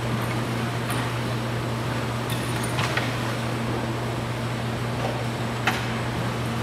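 Steady machinery hum: a constant low drone over a wash of noise, with a few light clicks scattered through it.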